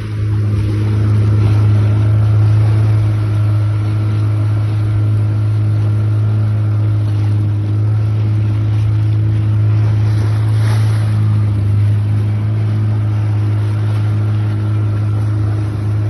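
A small boat's engine running steadily at one pitch as the boat cruises, over a constant wash of wind and water noise.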